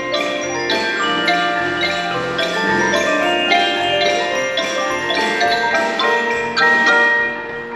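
Percussion ensemble playing a tune on mallet instruments: many quick struck, pitched notes that ring on and overlap, with some high bell-like notes above.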